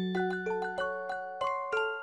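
Background piano music: a slow melody of single bright notes, about three a second, over a held low note.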